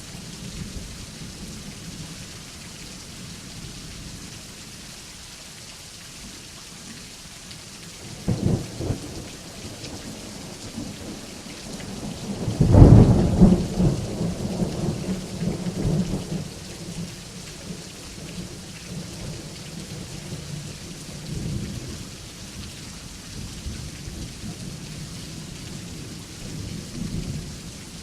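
Steady rain with rolling thunder. A short clap comes about eight seconds in, then a loud peal a few seconds later that rumbles on for several seconds, and a fainter rumble near the end.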